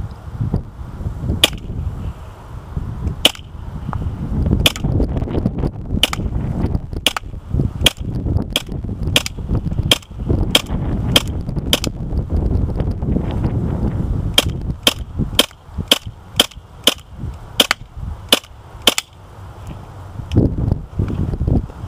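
KWA MP9 gas-blowback airsoft gun firing shot after shot, about twenty sharp cracks, a second or more apart at first and about two a second towards the end. A steady low rumble runs underneath.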